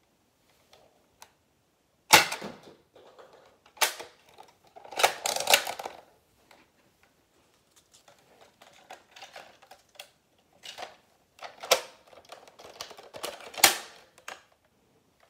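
Plastic clicks, snaps and rattles of a toy shotgun-style blaster being handled and reloaded with plastic shells. The snaps come at uneven intervals, loudest about two seconds in and near the end.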